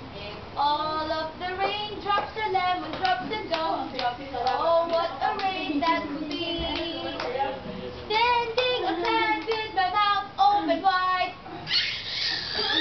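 High-pitched singing of a sung tune, with hands clapping along. A brief burst of noise comes near the end.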